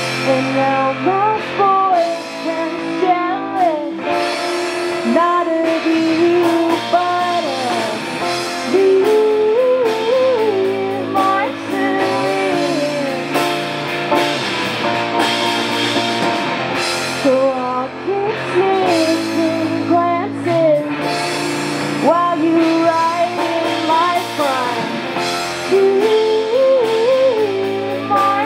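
A woman singing lead, live, to strummed ukulele and electric guitar: a melodic pop-rock song that runs on without a break.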